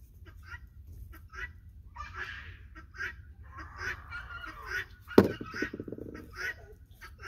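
Geese honking in short, repeated calls, with a sharp click about five seconds in.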